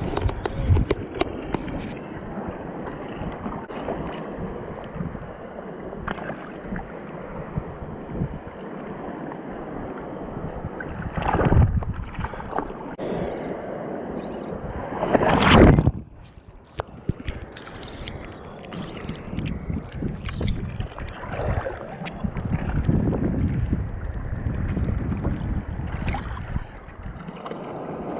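Surf and wind noise on a GoPro microphone: a steady rushing wash of waves and wind buffeting, swelling louder twice, about twelve and sixteen seconds in.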